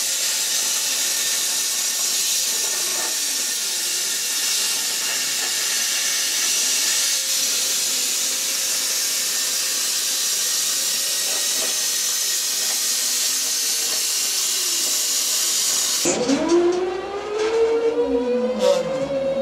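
R-Tech CNC plasma cutter torch cutting through 5 mm steel plate: a loud, steady hiss. About sixteen seconds in it cuts off abruptly, and gliding, swooping tones like music follow.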